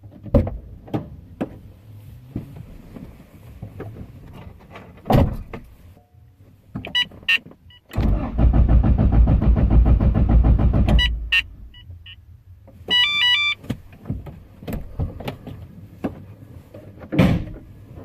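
Starter cranking a turbocharged Acura Integra's engine for about three seconds in an even rhythm, then stopping without the engine firing: a no-start. Scattered clicks come before it, and short electronic beeps sound just before and after the cranking.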